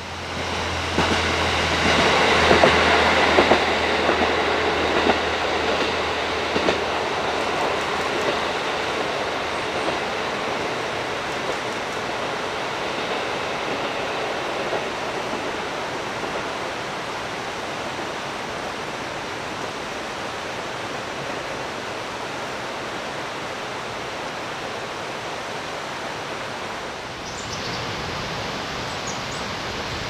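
A diesel train passing close by. For the first few seconds there is a low engine hum and the wheels click over the rail joints; then the sound fades slowly as the train moves away, leaving a steady rushing noise.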